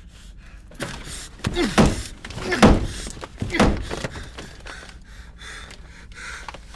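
A man struggling in a tight space, crying out without words amid knocks and thuds against a wall. These come in three loud bursts between about one and four seconds in, then fade to scattered smaller knocks.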